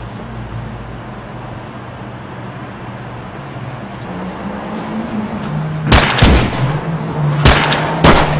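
Background music with low held notes, then from about six seconds in several sharp gunshots in quick succession.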